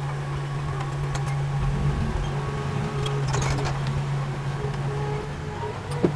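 Heavy machine's diesel engine running steadily at a constant pitch, with a few faint clicks and a sharp knock near the end.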